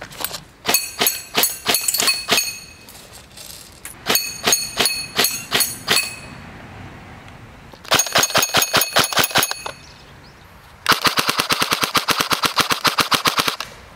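M4-type airsoft electric gun fitted with an electronic trigger, firing quick strings of shots, with BBs ringing off steel plate targets. A fast full-auto burst of about a dozen shots a second follows near the end.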